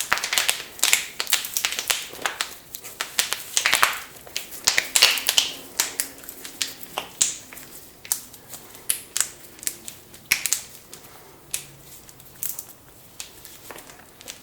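A group of people cracking their knuckles together: many sharp, overlapping pops and cracks, thick and fast for the first several seconds, then thinning to scattered single pops.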